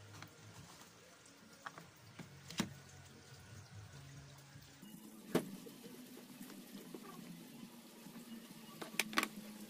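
A few light clicks and knocks from raw banana strips being dropped into a plastic basin and handled there. The sounds are faint, with a low background hiss between them.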